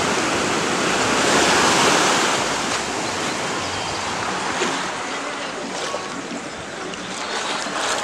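Shallow surf washing in over sand at the water's edge, swelling about a second or two in and then easing off.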